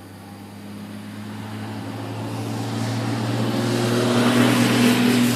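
A road vehicle approaching and passing close by, its engine and tyre noise growing steadily louder to a peak near the end.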